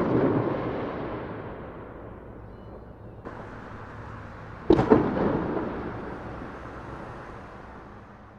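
Street firework explosions: a loud bang at the very start and a quick double bang almost five seconds in. Each bang echoes off the surroundings and dies away over a few seconds.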